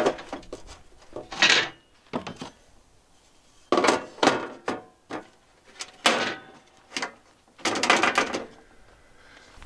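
Portable propane grill being reassembled: its metal cooking grate set into place and the lid closed, a series of separate clanks and scrapes, some with a short metallic ring.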